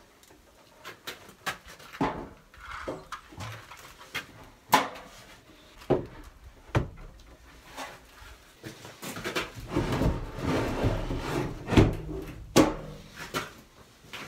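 Wooden slab for an outhouse bench top being handled and set into place on its wooden frame: several sharp wooden knocks and clunks, with a longer stretch of scraping and shuffling about two-thirds of the way through as it is slid down into its frame.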